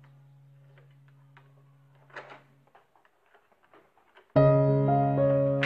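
Background music with a piano-like keyboard sound. It plays faintly at first, with a few light clicks and a brief noise about two seconds in, then comes in loud and abruptly a little over four seconds in.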